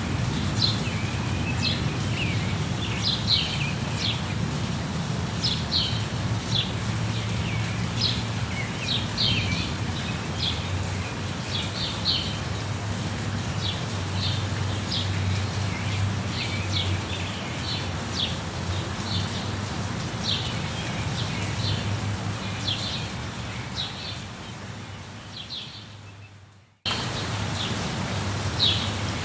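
Small birds chirping in many short, quick calls over a steady background hiss and low hum. Near the end the whole sound fades out and then cuts back in abruptly, like the seam of a looped ambience recording.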